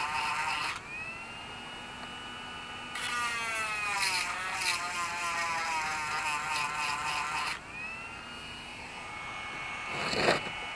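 Dremel-type rotary tool with a sharpening stone whining steadily and grinding the cutter teeth of a chainsaw chain, damaged after hitting a rock; the grinding is heard for about the first second and again from about 3 to 7.5 seconds, the whine dropping in pitch as the stone is pressed on. A single sharp knock about 10 seconds in.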